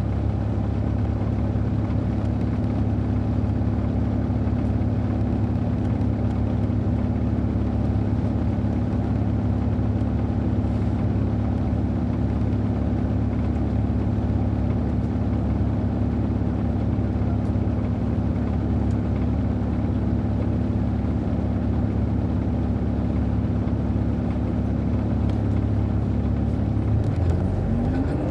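Caterpillar C13 diesel engine of an MCI D4500CL coach, heard on board, running at a steady pitch. Near the end the engine note drops, then starts climbing as it picks up revs again.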